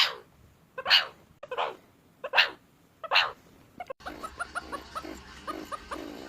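Meerkat giving five sharp, rasping barks spaced under a second apart. About four seconds in, these give way to a quieter run of many quick chirps and peeps, the chatter of several meerkats.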